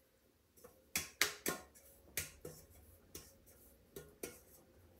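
Greased metal cake pan being tapped and turned to coat its sides with flour: a run of light, irregular taps on the pan, some with a faint metallic ring.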